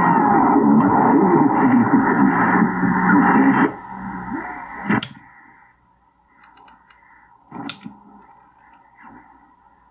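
Drake 2-B receiver tuned across the 40-metre ham band: static and garbled signals through its narrow audio. After almost four seconds the sound drops away to faint hiss, broken by two sharp clicks a few seconds apart.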